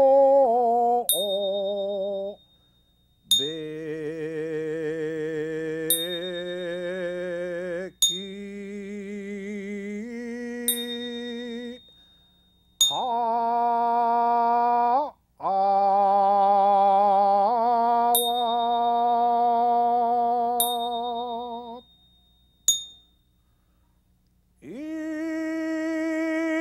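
Male voice singing a Buddhist goeika hymn in long, slowly drawn-out notes with a wavering vibrato, in phrases broken by short pauses. A small Buddhist bell is struck every few seconds, and its high ring lingers after each strike.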